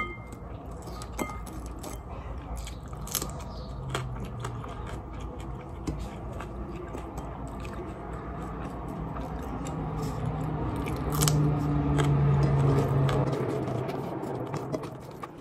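Close-up eating of a meal of rice and chicken curry: chewing and biting, with many small clicks and crunches. A low hum swells about ten seconds in and fades a few seconds later.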